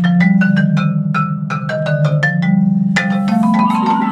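Marimba played with mallets: quick strikes on higher bars, about four a second, over low notes that ring on underneath. About three seconds in the strikes stop and the low notes are left sounding.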